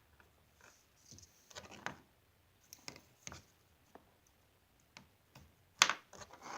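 Scattered light clicks and taps of small knife parts and handle scales being handled during disassembly, with one sharper click near the end.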